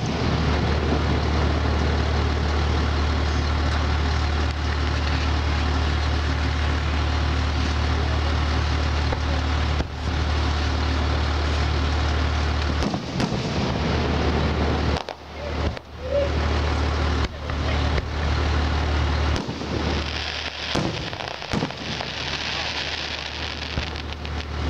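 Fireworks display: a steady crackling hiss with scattered sharp bangs of shells bursting, mostly in the second half, over a low steady rumble.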